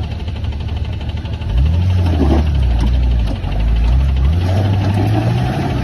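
Off-road vehicle's engine running, rising in pitch twice as the throttle opens.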